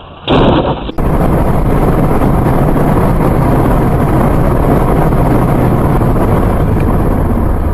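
A brief loud burst just after the start. Then steady, loud wind and road noise from a car driving along an open road, with a low hum underneath.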